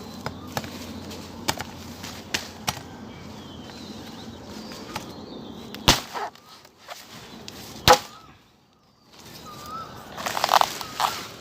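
Machete-style knife chopping into banana plant leaves and stems: scattered sharp whacks, the loudest about six and eight seconds in, with a quick flurry of cuts near the end.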